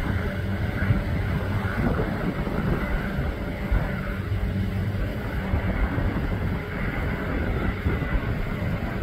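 A flight of three small military helicopters passing at a distance, their rotors giving a steady low beat over the drone of the engines.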